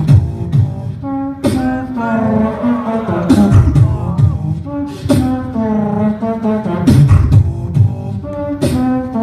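Solo competitive beatboxing into a handheld microphone through a PA: held, pitched vocal bass tones under sharp snare-like hits, with quick sweeping pitch glides in the middle.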